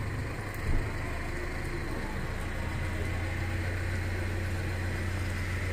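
A steady low mechanical hum with a faint, even high whine above it, as of machinery running.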